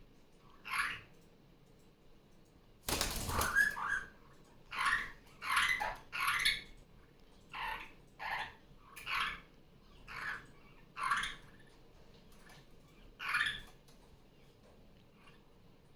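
Barraband parakeets (superb parrots) calling: one short call near the start, then a loud, harsh call about three seconds in, followed by a string of about ten short calls spaced irregularly.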